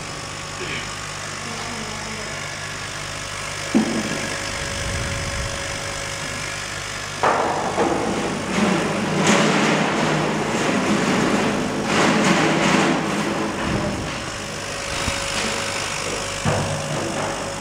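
CO2 laser cutting machine running with its exhaust fan while cutting PVC carpet: a steady low machine hum. A click comes about four seconds in. A louder, rougher stretch starts suddenly about seven seconds in and eases off around fourteen seconds.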